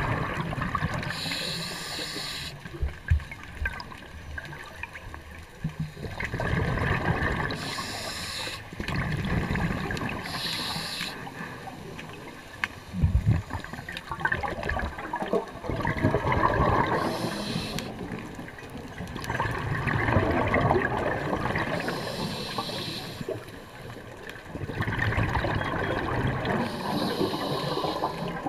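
Underwater scuba breathing through a regulator: a short hiss on each inhale, then a longer burbling rush of exhaled bubbles, repeating every few seconds.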